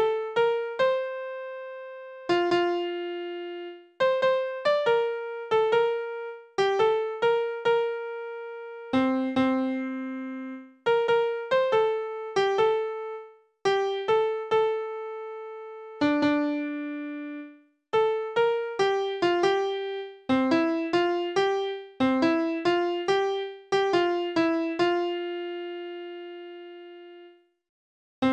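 Computer score playback in an electric-piano-like keyboard sound, picking out a hymn melody one note at a time in a steady tempo, each note starting sharply and fading, with short pauses between phrases.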